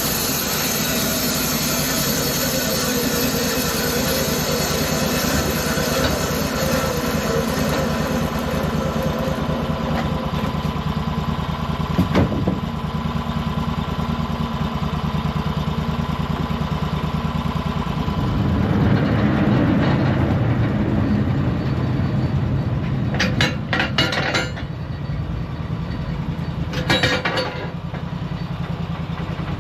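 Band sawmill's engine running steadily. For the first several seconds the blade cutting through a spruce log adds a high hiss over the engine, then the engine runs on alone. A few sharp knocks come near the middle and toward the end.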